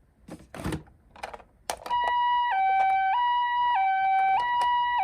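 A few sharp plastic-sounding clicks and knocks, then about two seconds in a toy ambulance's electronic siren starts: the Japanese ambulance 'pee-poh' two-note call, switching between a higher and a lower note about every 0.6 seconds.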